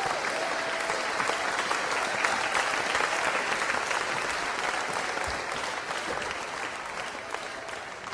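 Audience of graduates applauding, a dense steady clapping that gradually dies away over the last few seconds.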